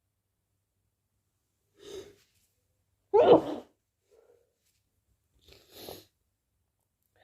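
One loud human sneeze about three seconds in, with a quieter breath about a second before it and another short breathy sound near the end.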